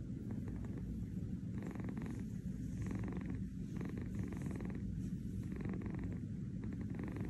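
Tabby kitten purring steadily while being stroked, the purr pulsing in an even rhythm from about a second and a half in.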